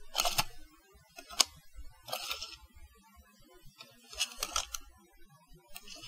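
Tape measure being worked: about five short bursts of clicking and rattling, a second or two apart. The sharpest is a single loud click about a second and a half in.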